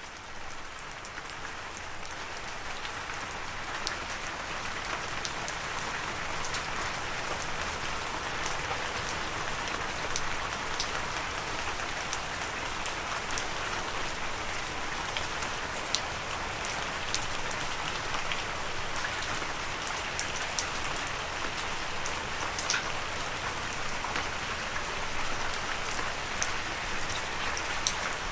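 Steady rain, with many separate drops ticking sharply through the even hiss. It swells over the first couple of seconds and then holds steady.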